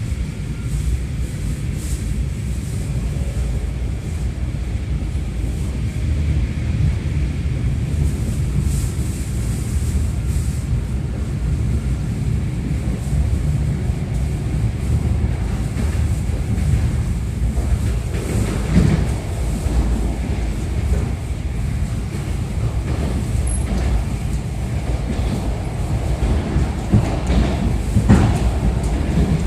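Suburban electric train (elektrichka) running, heard from inside the carriage: a steady low rumble, with wheels knocking over rail joints more often and louder in the second half.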